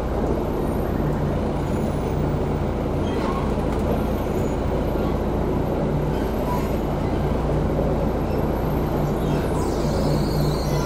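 City bus engine running with a steady low drone as the bus drives along, heard from inside the bus.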